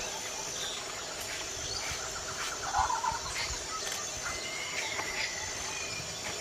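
Outdoor ambience with scattered bird calls and chirps, one louder call about three seconds in.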